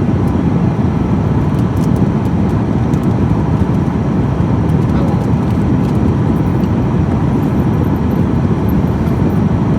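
Steady low rumble of road noise heard from inside a moving car.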